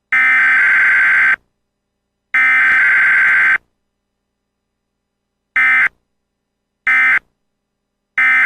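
Loud electronic alert buzzer beeping in a fixed pattern: two long tones of over a second each, then three short beeps, each cutting off cleanly into silence.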